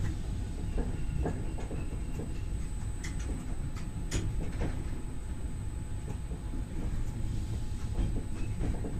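MI84 electric multiple unit heard from the driver's cab, rolling slowly with a steady low rumble. Irregular clicks and knocks come from the wheels running over rail joints and points.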